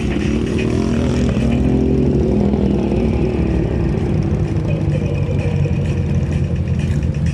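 Motorcycle engine running under way at low speed, recorded on board the bike, with its pitch rising about a second in as it accelerates.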